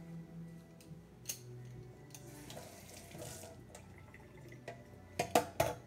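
Kitchen tap running briefly, then a quick run of three sharp knocks near the end.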